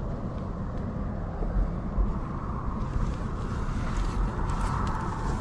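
Four-stroke dirt bike engine running, with wind buffeting the microphone.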